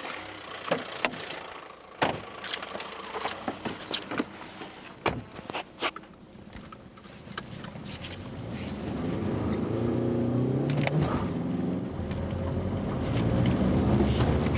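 A string of clicks and knocks inside a car as its occupants settle in, then the car's engine running and getting louder from about eight seconds in as it drives off.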